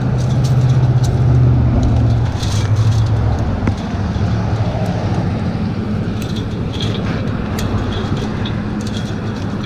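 Road traffic going by: a passing vehicle's low engine hum, loudest in the first few seconds, then settling into a steady traffic drone. Scattered light clicks sound over it.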